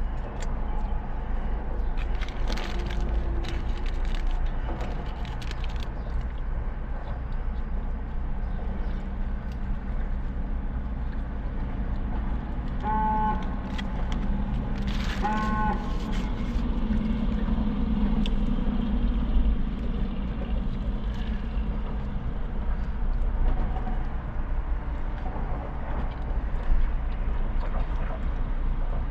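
Steady low rumble of an idling car heard from inside the cabin, with rustling and crunching a few seconds in. Near the middle come two short pitched tones about two and a half seconds apart.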